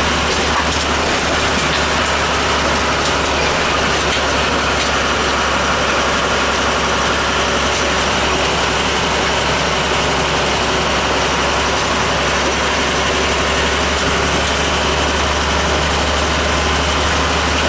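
Steady vehicle cabin noise while driving: a constant low engine hum under an even road and wind hiss.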